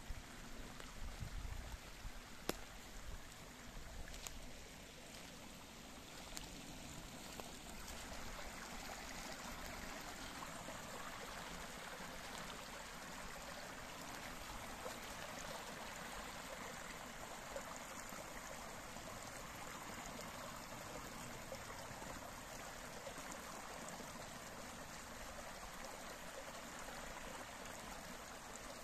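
Small woodland stream flowing and trickling over shallow riffles and a little cascade, a steady rush of water that grows louder about eight seconds in. A few sharp clicks and soft knocks in the first few seconds.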